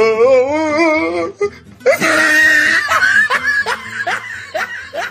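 A person's voice in a drawn-out, wavering cry, then a loud shrill outburst and a run of short bursts of laughter.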